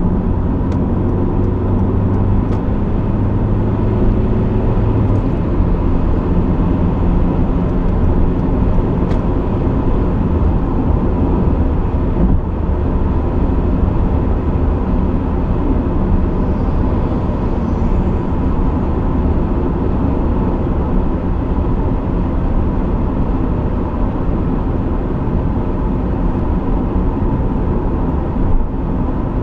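Honda CR-V's 1.6 i-DTEC four-cylinder turbodiesel and tyre noise while driving, a steady hum that shifts in pitch about five seconds in.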